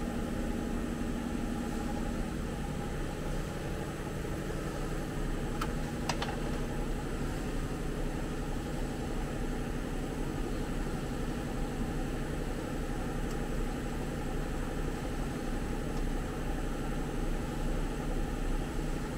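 Heavy truck engine idling steadily, with two faint clicks about six seconds in.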